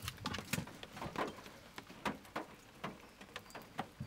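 A string of light, irregular knocks and clicks, several a second, as a person climbs out of a car's seat and moves around it.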